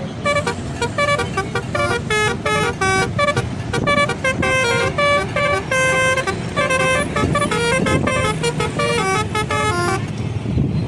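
Indonesian bus telolet horn playing a quick multi-note tune of short toots, which stops abruptly about ten seconds in. The bus engine rumbles low underneath.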